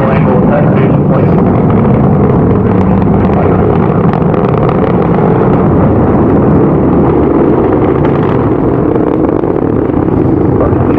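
Atlas V rocket engine thundering through ascent: a loud, steady rumble with a crackle running through it.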